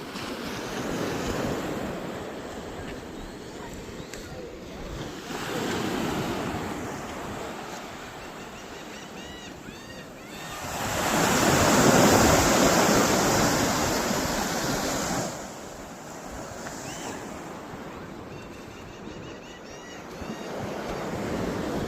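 Waves washing in slow swells, mixed with wind on the microphone. The loudest surge comes about halfway through and cuts off suddenly.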